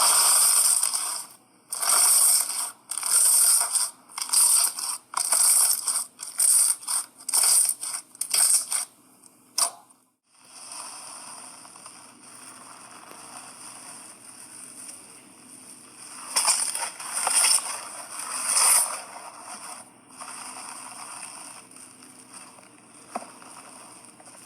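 Slime being squeezed and pressed by hand: a run of short, loud squishing and crackling bursts for about ten seconds, then quieter continuous working of the slime with a few louder swells.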